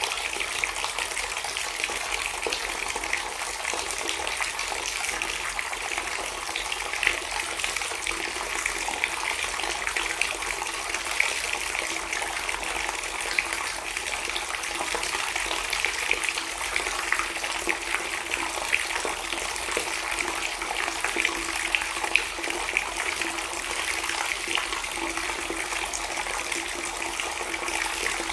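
Water pouring in a steady, continuous stream and splashing into standing water, with small splashes throughout.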